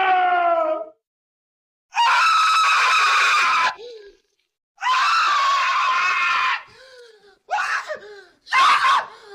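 A string of separate scream sound effects. One falls in pitch and trails off about a second in. After a short pause come two long screams of nearly two seconds each, then two short, sharp screams near the end.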